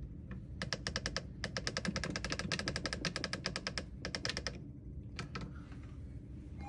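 A rapid run of light clicks, about nine or ten a second, lasting about four seconds, then a couple of lone clicks about five seconds in, over a low steady background hum.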